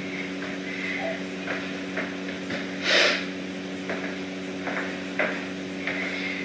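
Footsteps and small knocks of a person in boots moving about a vinyl-plank floor, over a steady electrical hum. There is one louder short noise about three seconds in.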